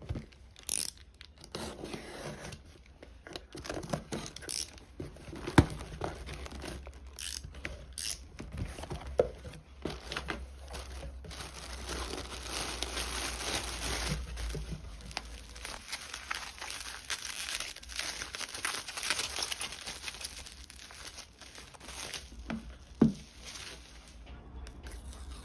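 Unboxing: a cardboard shipping box opened, with tearing and a plastic packaging bag crinkling and rustling as it is handled and pulled out. A few sharp knocks stand out, loudest about five seconds in and near the end.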